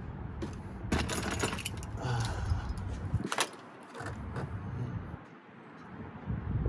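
Rummaging through supplies: items handled and shifted, with light clinks, rustles and knocks and one sharp click about three and a half seconds in.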